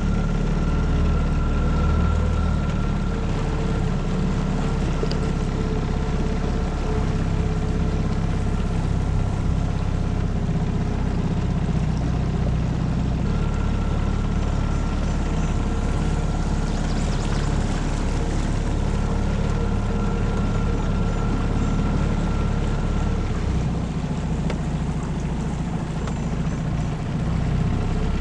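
A Tohatsu 9.8 hp four-stroke outboard motor running steadily, pushing a small boat along the water. Its engine note shifts slightly a couple of times.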